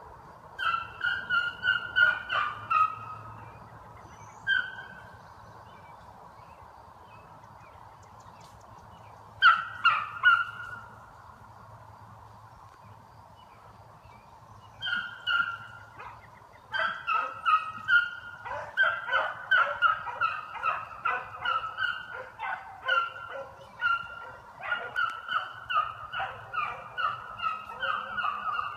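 Beagles baying while running a scent trail: short, repeated bays, a few scattered ones at first, then a near-continuous string of bays over the second half.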